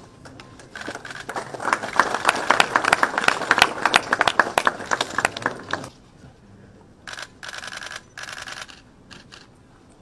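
Many camera shutters clicking fast and irregularly as press photographers shoot a posed group for about five seconds. Near the end come three short bursts of continuous-shooting clicks.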